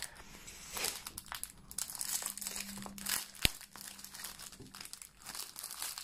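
Clear plastic packaging crinkling irregularly as it is handled and turned over, with one sharp click about three and a half seconds in.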